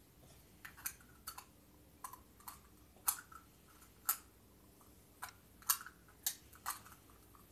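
Small plastic toy tea-set pieces clicking and tapping against each other as they are handled: about a dozen light, sharp clicks at irregular intervals.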